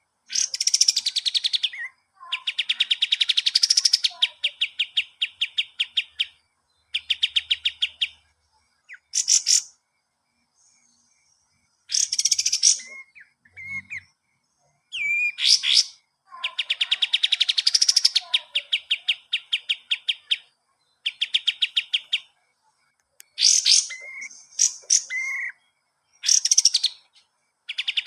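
A kapas tembak songbird singing in bouts of rapid, evenly pulsed rattling trills of a few seconds each, broken by short, sharp high chirps and brief pauses.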